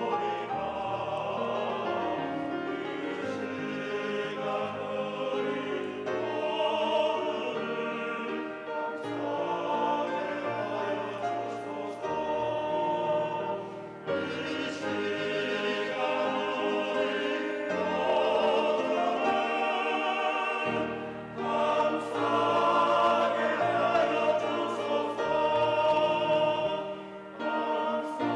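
Church choir singing a Korean hymn in parts, with sustained chords and short breaks between phrases.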